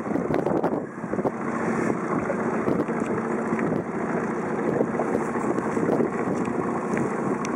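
Wind rushing over the microphone with water splashing against a moving boat, a steady rough noise.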